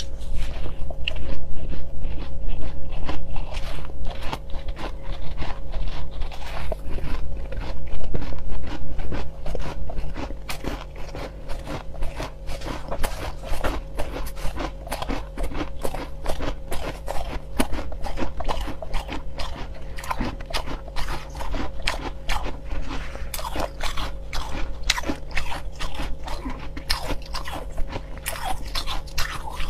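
Close-up crunching and chewing of mouthfuls of soft pink crushed ice, a dense run of rapid crackly crunches that grows busier about a third of the way in, over a steady low hum.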